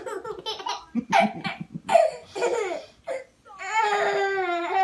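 A young child's high-pitched voice: short cries or laughs, then one long held wail near the end.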